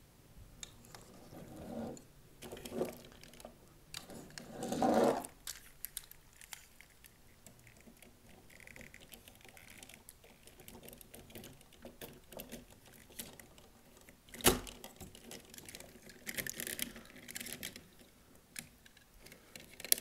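Power Rangers Legacy Collection Dragonzord and Megazord toy parts being handled and fitted together: scattered clicks, taps and rubbing, with one sharp snap about two-thirds of the way through.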